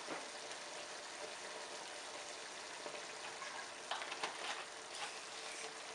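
Chopped chicken giblets, hearts and wings sizzling in a frying pan as the sauce cooks down almost dry, a steady crackling hiss. A few sharp clicks come about four seconds in.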